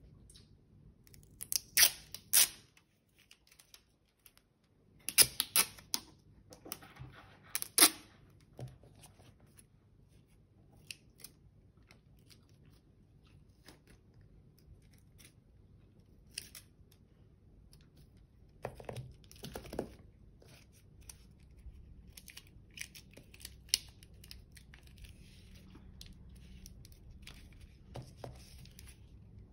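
Clear sticky tape ripped off its roll in a few short, loud pulls in the first several seconds. After that come quieter rustling, clicks and snips as paper is handled and cut with scissors.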